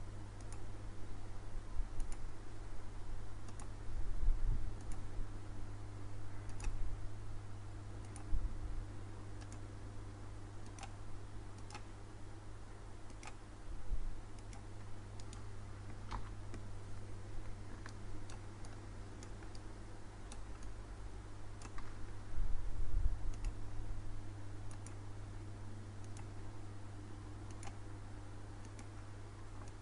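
Irregular, sparse clicks of a computer mouse while drawing in CAD software, over a steady low hum, with a few dull low thumps.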